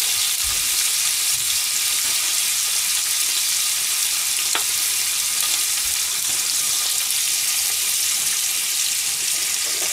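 Minced meat sizzling in a frying pan, a steady hiss, with one light tap about four and a half seconds in.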